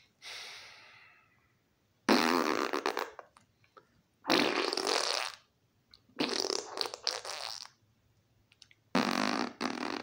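Man blowing raspberries with his lips: four loud bursts of about a second each, a couple of seconds apart.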